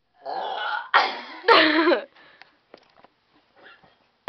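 A person burping loudly: one drawn-out belch that swells sharply twice, about a second and a second and a half in. The last part carries a low pitch that drops as it ends.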